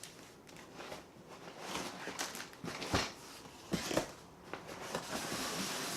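Unpacking and handling sounds: soft rustling, with a few light knocks, the loudest about three seconds in.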